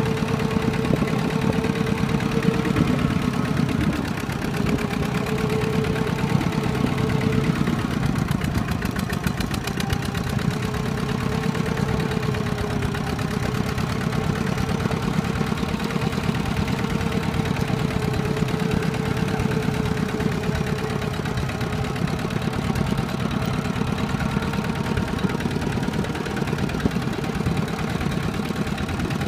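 Single-cylinder diesel engine of a two-wheel walking tractor running steadily under load as it pulls a trailer, a fast even putter with a steady whine running through it.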